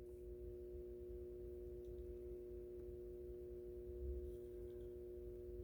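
Faint steady background hum made of several held tones, over a quiet low rumble.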